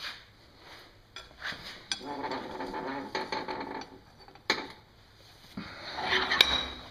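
Hand file rasping on the steel tang of a freshly forged knife clamped in a vise, in a few strokes, with a sharp metallic click in between.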